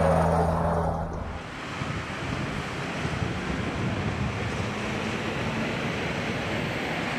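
Scania G 450 XT tipper truck's inline six-cylinder diesel and tyres passing close by. The deep engine drone fades away after about a second. Then comes a steady rushing noise with a faint engine hum under it.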